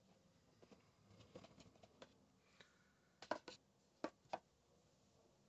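Faint handling noises of cardboard gift boxes being moved and set down on carpet, with light taps and knocks. The sharpest knocks come in a quick cluster a little over three seconds in, followed by two more about a second later.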